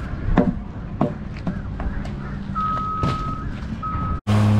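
Steady low rumble with a few sharp knocks, and a high electronic beep, one long and then one short. Near the end, after an abrupt cut, a vehicle engine is running steadily and loudly.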